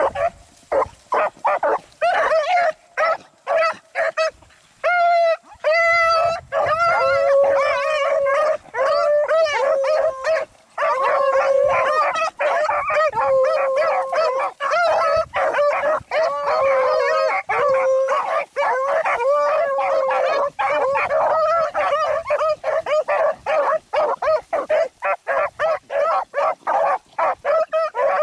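A pack of beagles baying as they run a rabbit's scent trail. First come short, separate chops, then from about seven seconds in several hounds give tongue together in overlapping, drawn-out cries.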